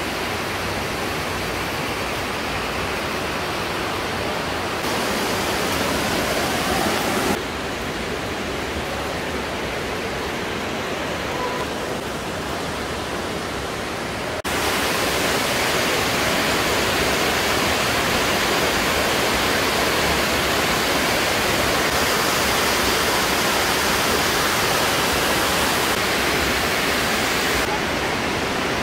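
Steady rush of flowing water in a limestone cave, an even hiss with no distinct strokes, that jumps abruptly in level and brightness about 7 and 14 seconds in and is louder after that.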